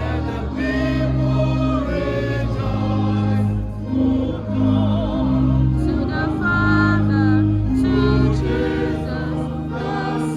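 A choir singing, in long held notes that waver slightly in pitch.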